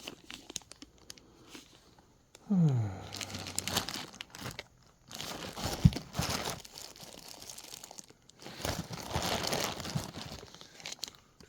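Crinkling and rustling of packaging as the parts of a conversion kit are handled, in irregular bursts. There is a short falling tone about two and a half seconds in and a sharp knock near the middle.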